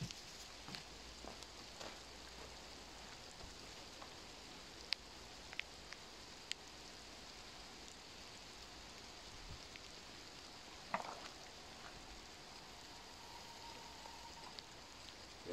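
Light rain falling, a steady soft patter with scattered ticks of single drops. A clunk about eleven seconds in, and a faint thin whistle for a couple of seconds near the end.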